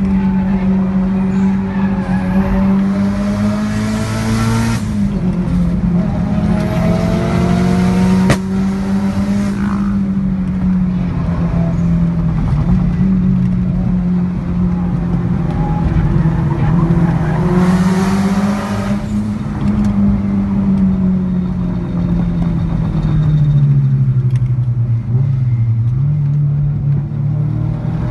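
Mitsubishi Lancer Evolution VIII's turbocharged four-cylinder engine running hard on a mountain road, its pitch rising and falling with throttle and gear changes. A single sharp exhaust pop comes about eight seconds in. The engine drops lower for a couple of seconds near the end before it climbs again.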